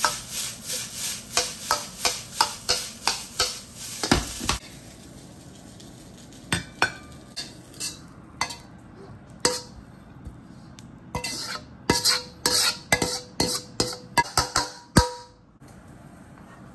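Steel ladle striking and scraping a carbon steel wok as fried rice is stir-fried over sizzling heat, in quick regular strokes about three a second. The strokes stop after about four seconds. Sparser single clanks follow, each ringing briefly as the ladle knocks and scrapes against the tilted wok.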